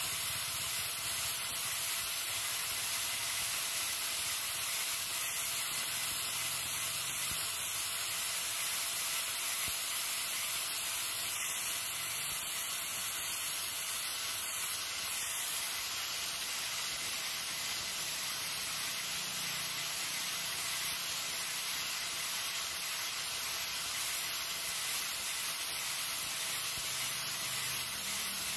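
Electric angle grinder with a sanding disc running steadily against a wooden machete handle, shaping it: a continuous hiss of abrasion over the motor's steady whine.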